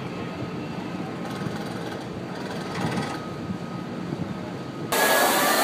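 Electric chain hoists running steadily, a mechanical hum with a faint high whine. Near the end a much louder rushing noise starts suddenly.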